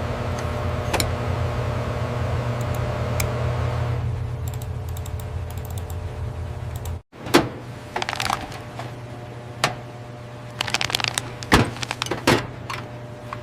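Factory machinery running with a steady low hum for about seven seconds. After a brief cut, a quieter machine hum follows with scattered sharp clicks and clinks.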